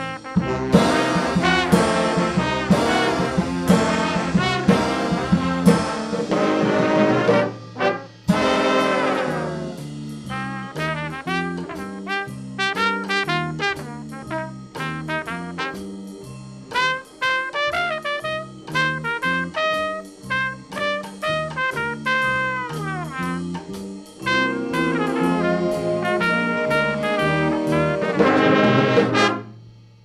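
Student jazz big band playing: full brass and saxophone sections in loud chords that end in a falling sweep, then a solo trumpet line over the rhythm section, then the whole band back in with a loud rising sweep that cuts off sharply just before the end.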